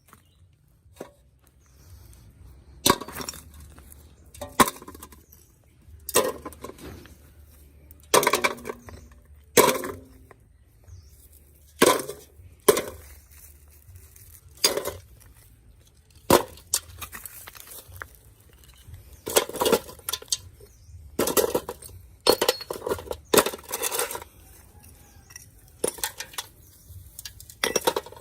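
Irregular clicks, taps and light clinks of small hard parts and tools being handled on a work surface, some with a short metallic ring, as a damaged smartphone is taken apart.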